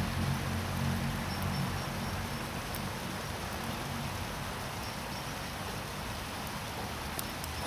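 Steady hiss of rain falling, with a low rumble in the first couple of seconds that fades away.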